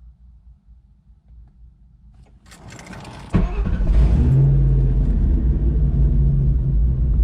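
2001 Roush Mustang's 4.6-litre V8 being started: the starter cranks for about a second, then the engine catches about three seconds in with a sudden jump in loudness. It settles into a steady idle, running on new MSD Blaster coils and fresh spark plugs.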